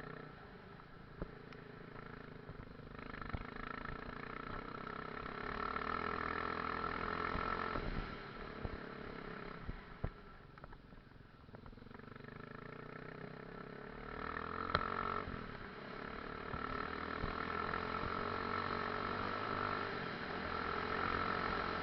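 Enduro motorcycle engine running and revving, swelling and easing off several times, with a few sharp knocks along the way.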